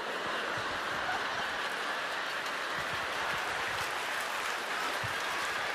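Large theatre audience laughing and applauding in a steady wash of crowd noise.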